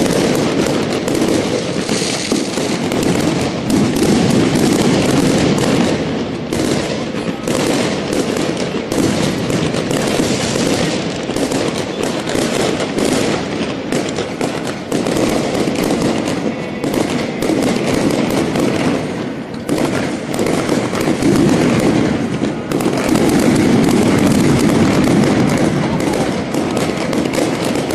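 Fireworks and firecrackers going off: dense, continuous crackling with many overlapping bangs, loud throughout.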